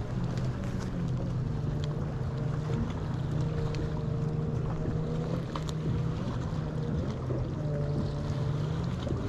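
Boat motor running with a steady low hum, with wind buffeting the microphone.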